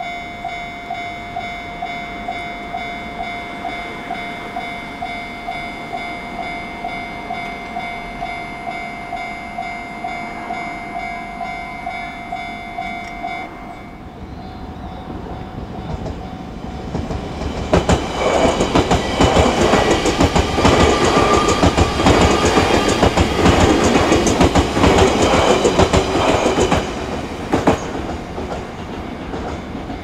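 Japanese level-crossing warning bell ringing at about two strokes a second, dropping much quieter about 13 seconds in. A JR Gotemba Line electric train then passes from about 18 to 27 seconds, its wheels clattering over the rail joints, while the faint bell keeps ringing.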